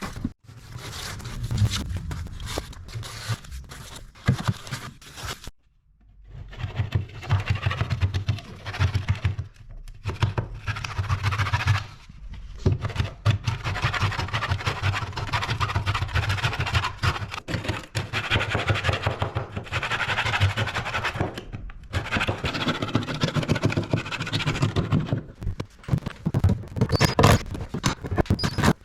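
Repeated scraping and scratching on the staircase as it is worked on, in long rough stretches broken by short pauses, the longest just before six seconds in.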